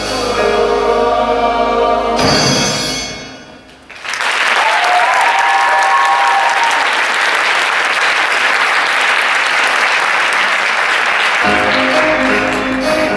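Show choir singing with accompaniment, the song ending about three seconds in. An audience then applauds and cheers for about seven seconds, with a shout rising above it. Near the end the choir and accompaniment start the next number.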